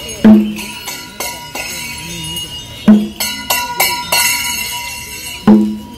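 Bells ringing and clinking, with three heavy low strikes about two and a half seconds apart and lighter metallic clinks between them, over steady ringing tones.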